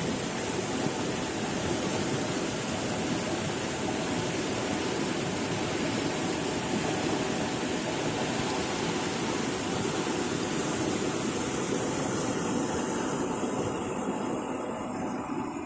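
Muddy floodwater rushing and churning through a breach in an earthen road embankment, a steady loud rush of water. The cut had been opened only about a foot and has been widened by the flow.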